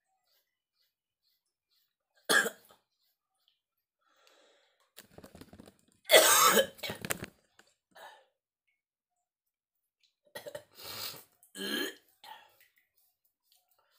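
A man with a feverish chest cold coughing and clearing his throat in bouts: one sharp cough about two seconds in, a longer, louder fit in the middle, and another run of coughs near the end.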